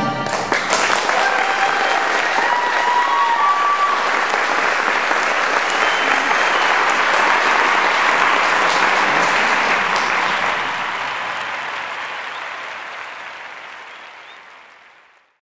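Theatre audience applauding at the end of a dance performance, fading out over the last few seconds.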